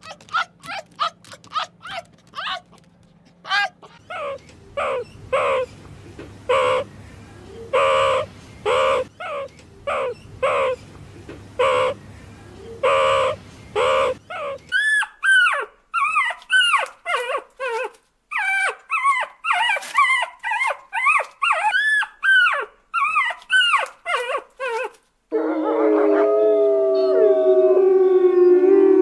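A red fox's short, sharp barks and yips come in quick succession. Then comes a run of rising-and-falling yelping calls. About 25 seconds in, several wolves start howling together in long, overlapping howls that slide in pitch.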